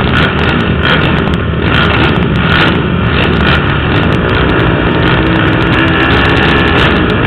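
Several racing ATV engines revving at once, their pitches rising and falling over one another.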